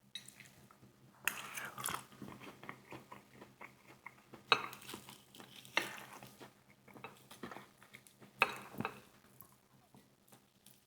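Close-up eating: biting into and chewing a crispy fried KFC chicken wing, with several louder crunchy bites between quieter crackly chewing, over a faint steady low hum.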